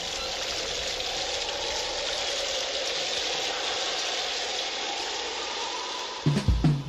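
A steady rushing noise with a faint wavering tone in it, then a few low thumps near the end as music begins.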